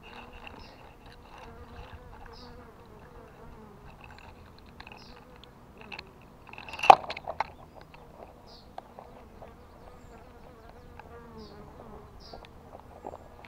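Honeybees buzzing as they fly around the entrance of a swarm trap, a wavering hum from bees passing close by. The flying shows that a swarm has settled in the trap and is already foraging. About halfway through there is a single sharp knock.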